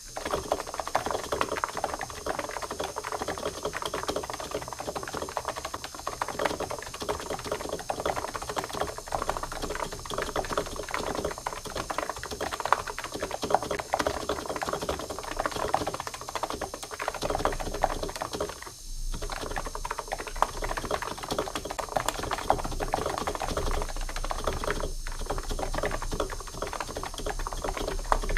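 Fast continuous typing on a computer keyboard, a dense stream of key clicks that breaks off briefly twice.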